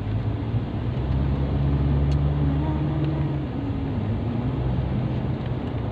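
Motor vehicle engine running steadily; its low hum drops in pitch about three and a half seconds in.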